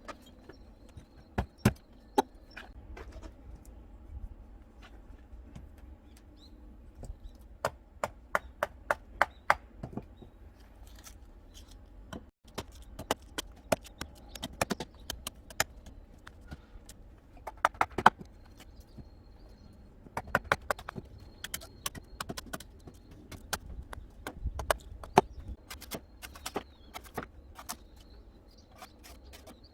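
Sharp chopping strikes in short rapid runs with pauses between: a coconut being chopped open.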